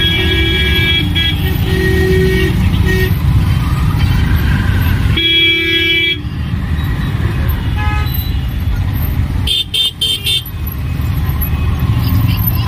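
City traffic heard from inside a moving auto-rickshaw: the three-wheeler's engine and road noise run steadily, and vehicle horns toot several times, the longest blast about five seconds in.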